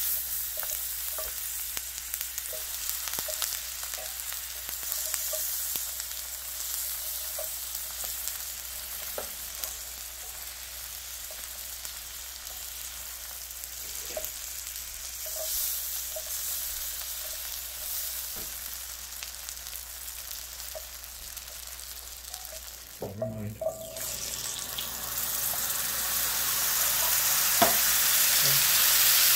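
Butter sizzling in a hot cast-iron skillet as bread slices fry in it: a steady hiss with small scattered pops. About 23 seconds in there is a brief break, then a louder sizzle that grows toward the end as beans cook in the pan.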